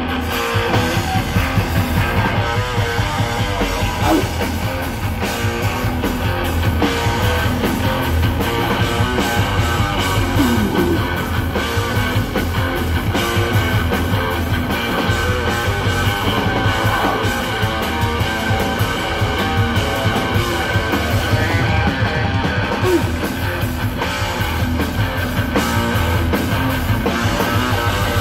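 Hardcore punk band playing live: distorted electric guitar, bass and drum kit, with the drums and cymbals coming in at the very start.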